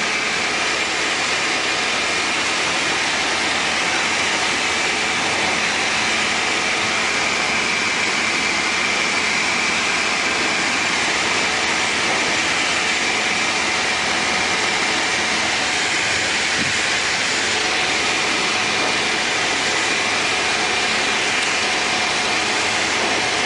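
Tecnam P92 Eaglet's engine and propeller running steadily in level cruise, heard inside the cabin as a constant drone with a faint steady hum over it.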